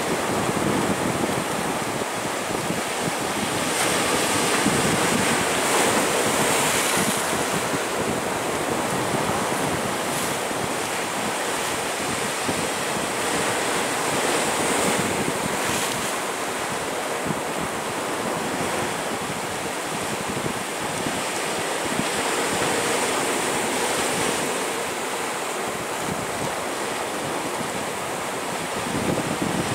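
Atlantic surf washing and breaking over the rocks below in a continuous rush that swells louder every several seconds, with wind noise on the microphone.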